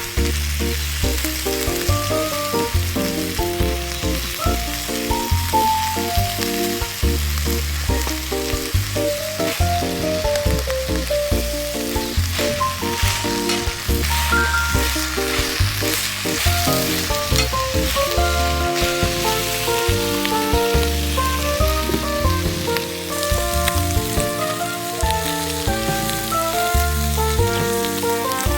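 Background music with a melody and a bass line changing about once a second, over a steady sizzle of food frying in a pan.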